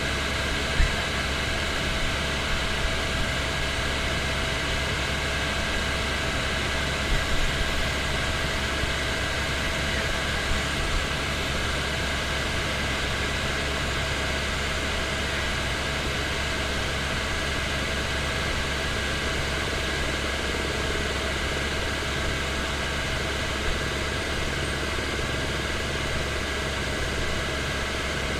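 Helicopter in flight heard inside the cabin: a steady drone of engine and rotors with constant whining tones. A brief knock comes about a second in, and a couple of smaller ones about seven seconds in.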